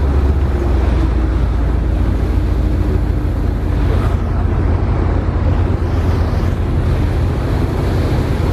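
Steady low rumble of a boat's engine, with wind on the microphone and the wash of water.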